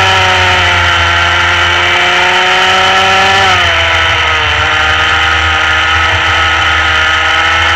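Rotax Mini Max kart's small two-stroke engine running hard at high revs, its pitch easing slightly, then dropping sharply about three and a half seconds in and climbing slowly again.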